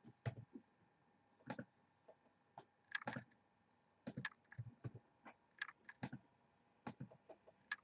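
Faint, irregular clicking of a computer mouse and keyboard keys.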